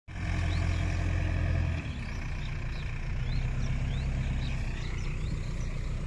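Backhoe loader's diesel engine running steadily, its note easing down slightly about two seconds in. Faint short high chirps sound above it.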